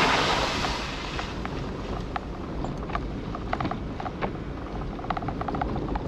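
Off-road vehicle driving slowly on a gravel forest trail: a steady low rumble with scattered ticks, clicks and rattles, after a brief rush of noise that fades about a second in.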